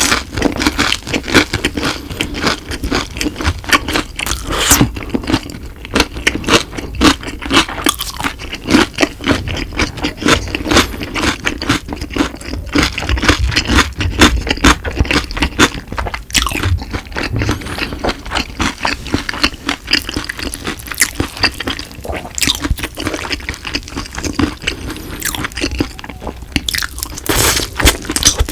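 Close-miked chewing of crispy fried food: a dense, steady run of crunches.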